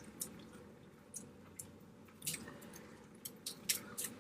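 Faint eating sounds from a crab and shrimp meal: scattered small clicks and ticks with soft wet chewing.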